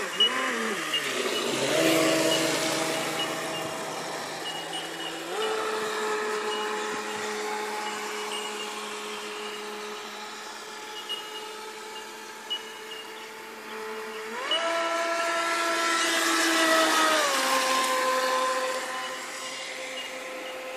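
Radio-controlled speedboat's motor running at speed, a steady buzzing note that steps up and down in pitch several times, over the hiss of the hull and spray, which swells about two seconds in and again around sixteen seconds.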